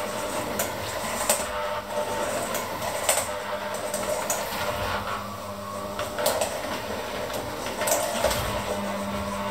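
Electric hand mixer running steadily, its beaters working dough in a stainless steel bowl, with sharp knocks now and then as the beaters strike the bowl.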